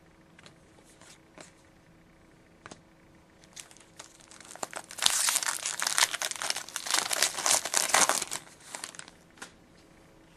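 A foil trading-card pack wrapper being torn open and crinkled. Loud crackling starts about five seconds in and lasts about three and a half seconds, after a few faint clicks.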